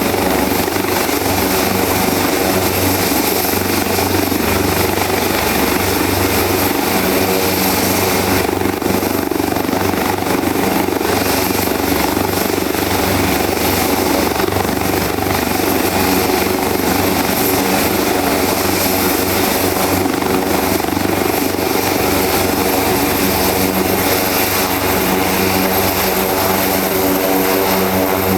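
Leonardo AW189 twin-turbine helicopter running steadily at close range: constant rotor noise under a high, steady turbine whine.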